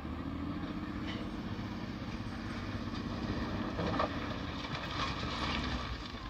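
An engine running steadily, with a short knock about four seconds in and some rattling after it.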